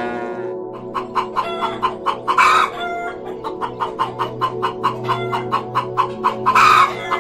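Chickens clucking in quick repeated short calls, about three or four a second, with two louder squawking calls, one about two and a half seconds in and one near the end, over background music with sustained tones.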